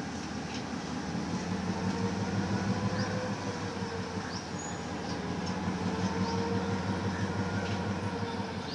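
Diesel locomotive running with a steady low engine drone as it approaches slowly hauling its coaches.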